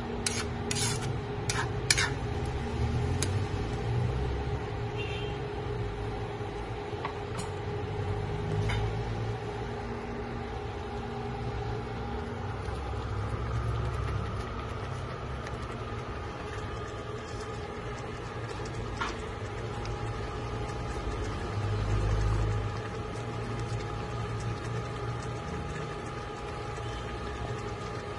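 A wok of chicken curry simmering over a steady kitchen hum with a low rumble. A metal spatula clinks against the pan several times in the first two seconds.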